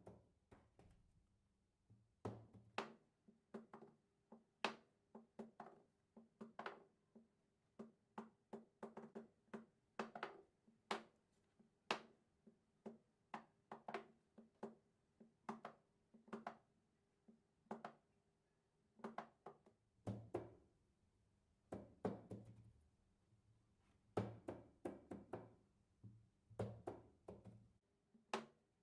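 Wooden fidget toy being rolled and handled: irregular sharp wooden clicks and knocks, about one or two a second, sometimes in quick clusters. A faint steady hum sits behind them.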